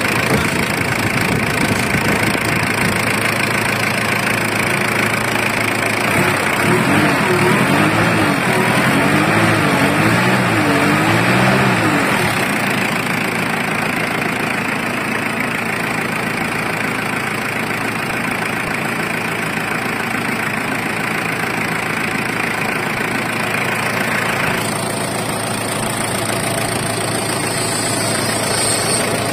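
Ford Everest diesel engine running steadily at idle, now started easily after its failed glow plugs were replaced. Between about six and twelve seconds in, a tone rises and falls over and over.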